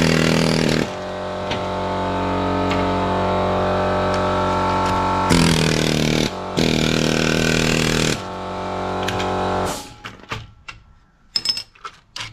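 Handheld chisel hammer with a flat chisel bit hammering rapidly against the parts of a TV circuit board, shearing them off. It runs steadily and grows louder in stretches as the bit bites. It stops about ten seconds in, followed by a few light clinks.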